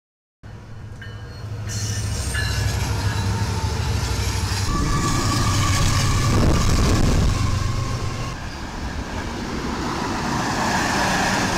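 A train passing close by: a steady low locomotive rumble under the rolling noise of wheels on rail, with thin, high wheel squeal in the first few seconds. The sound starts suddenly and cuts off sharply at the end.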